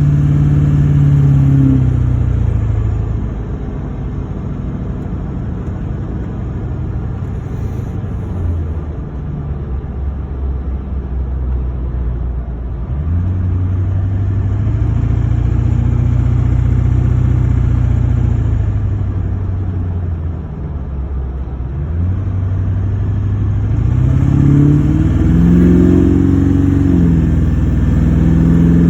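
LB7 Duramax 6.6-litre V8 turbodiesel running, its engine speed falling and rising several times: it drops about two seconds in, picks up again around the middle, dips briefly, then climbs higher near the end.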